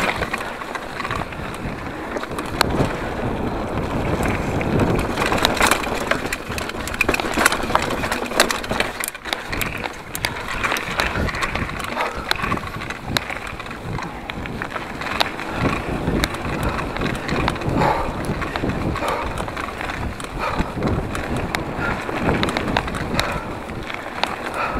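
Full-suspension mountain bike (2014 Giant Trance) descending a rocky dirt trail: knobby tyres rolling and crunching over dirt and stones, with constant irregular rattles and knocks from the bike over rough ground, and wind buffeting the microphone.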